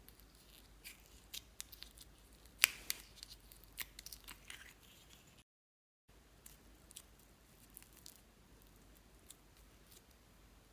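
Slime being handled, with scattered sharp sticky clicks and pops, thickest in the first few seconds. About halfway there is a brief dead silence.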